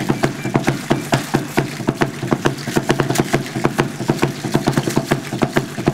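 Azteca dancers' ayoyote seed-pod ankle rattles shaking with each stamped step, a dense, rapid clatter in a steady rhythm over a low pulsing beat.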